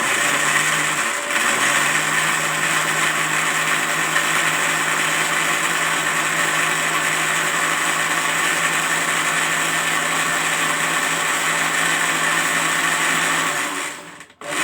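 Electric kitchen blender running steadily with a motor hum, blending peeled sapodilla fruit with water and a little ice into juice. There is a brief dip about a second in, and it cuts off shortly before the end.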